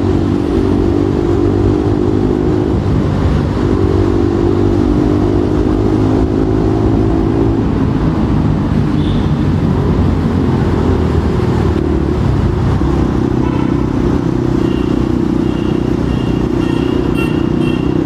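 Bajaj Pulsar NS200 motorcycle engine running under way at a fairly steady pitch, heard from the rider's own bike along with road and wind rumble. The engine note fades a little about halfway through, then comes back.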